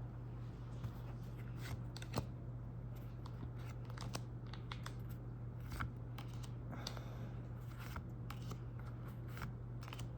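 Pokémon trading cards being handled and flipped through one by one: scattered light clicks and slides of card stock, over a steady low hum.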